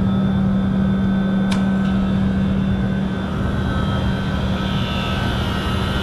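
Freshly started R-404A refrigeration condensing unit running, its compressor and condenser fan motor making a steady hum over a broad machine noise. A single sharp click comes about a second and a half in.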